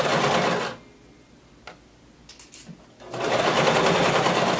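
Domestic electric sewing machine stitching through denim in two runs: a short burst at the start, then, after a pause of about two seconds, a longer steady run from about three seconds in.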